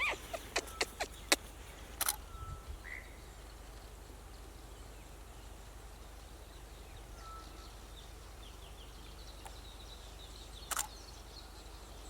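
Quiet open-air countryside ambience with faint, scattered bird calls: short whistles and a brief rising chirp, then a run of thin high chirps. Several sharp clicks come in the first two seconds, and another comes near the end.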